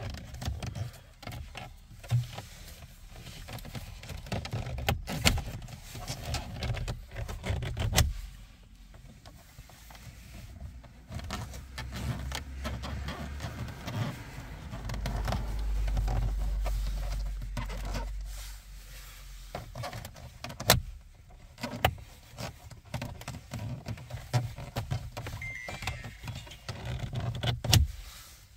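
Plastic dashboard trim panel of a 2015 Hyundai Sonata being pried loose: scattered sharp clicks and snaps of the clips among rattling and scraping plastic, with a low rumble for a few seconds around the middle.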